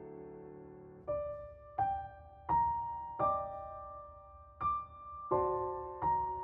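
Slow solo piano music: a held chord fades away, then single notes are struck one at a time, about every 0.7 seconds, each ringing and dying away.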